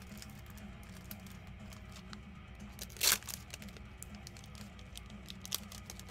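Crinkling and tearing of a trading-card box's packaging as it is opened, with many small crackles and one short, loud tear about three seconds in. Faint background music plays underneath.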